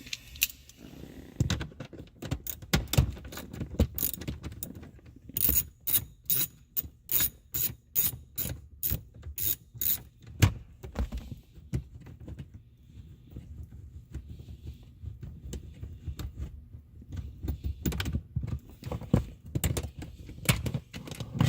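Ratchet wrench working a 10 mm bolt loose: sharp mechanical clicking, with a run of about a dozen evenly spaced clicks over some four seconds midway and scattered knocks and clicks later.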